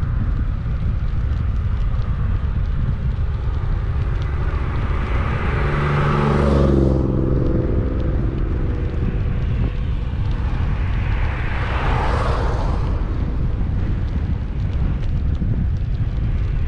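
Steady low rumble of wind on a bicycle-mounted camera's microphone while riding. About six seconds in, a motor vehicle passes with its engine pitch falling as it goes by. Around twelve seconds in, a second vehicle's tyre noise swells and fades.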